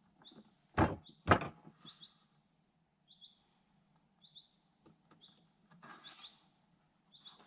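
Two sharp knocks about half a second apart, a second in, over repeated short, high bird chirps; a brief rustle near six seconds.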